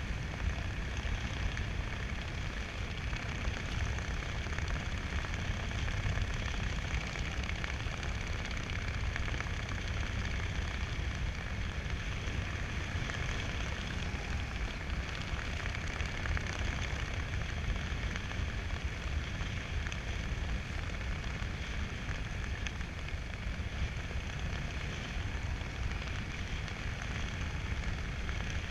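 Steady wind buffeting the microphone of a skydiver's camera during a parachute descent: a constant low rumble with a hiss over it.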